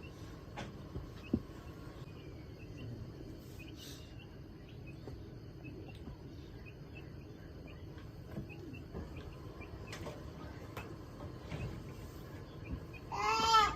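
Call duck quacking once near the end, a short nasal call, over a quiet background with faint scattered chirps and a few soft clicks.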